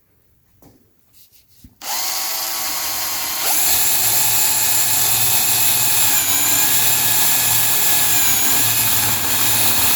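Electric drill boring out the plastic inside a gear shift knob: after a few faint clicks it starts about two seconds in and runs steadily, picking up speed a little soon after and dipping briefly in pitch twice.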